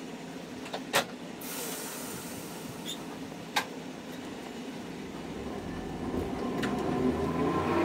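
Hankai Tramway streetcar running along the track, heard from inside the car, with a few sharp clicks from the wheels and track. Its running noise grows louder near the end.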